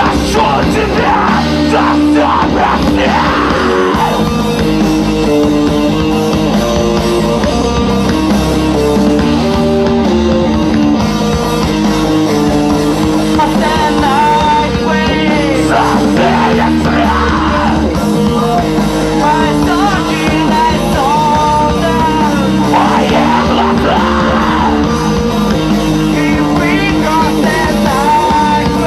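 A rock band playing live: loud distorted guitars, bass and drums, with a singer's voice that at times turns to yelling.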